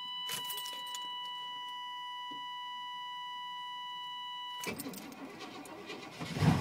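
A steady high tone sounds for the first few seconds, then cuts off. The starter cranks the 1994 GMC Sierra's 350 (5.7 L) TBI V8 for about a second and a half, and the engine catches near the end and starts running: a cold start that catches fairly quickly.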